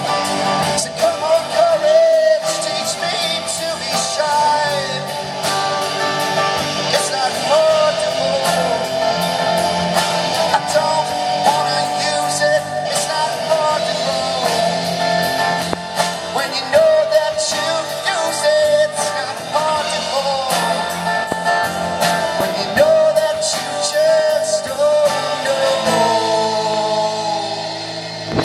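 Rock song with a sung lead vocal and guitars over a steady drum beat, winding down near the end.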